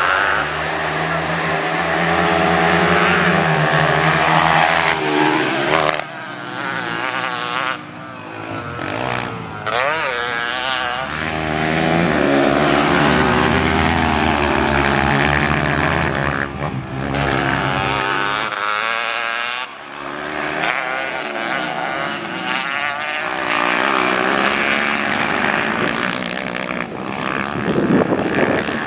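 Trail motorcycle engine ridden hard, revving up and down repeatedly with brief drops in level as the throttle is closed and reopened.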